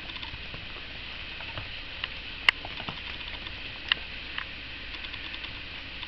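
Italian greyhound–rat terrier mix puppies' claws pattering and ticking on a hardwood floor as they scramble about, with a couple of sharper clicks.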